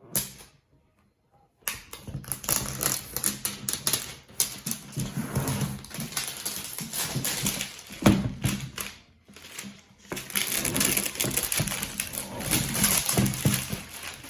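Packaging of a toy box being handled and opened: dense, irregular crinkling and rustling, with one sharp knock about 8 seconds in.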